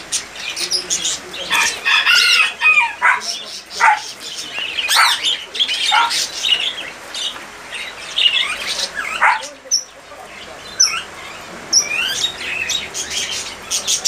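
Caged birds, rose-ringed parakeets among them, chirping and squawking in an irregular, overlapping run of short calls, busiest in the first half.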